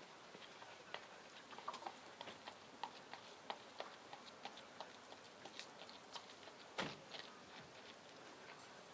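Dressage horse walking on a sand arena: faint, light clicks of hooves and tack at about three a second, with one louder thud about seven seconds in.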